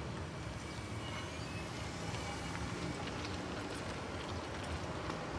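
Faint, steady low rumble of the NJ Transit ALP-45A-hauled commuter train running away into the distance, with a few brief, faint high chirps over it.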